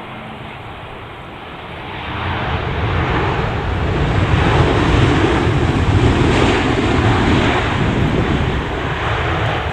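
Jet airliner passing close, its engine noise swelling about two seconds in, with gusty wind buffeting the microphone.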